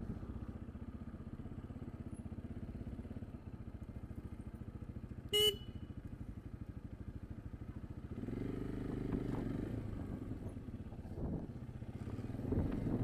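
Motorcycle engine running with a steady pulse as the bike rides along, and a short vehicle horn beep about five seconds in, the loudest sound. From about eight seconds in the engine grows louder and rises in pitch as the bike speeds up, with wind noise building near the end.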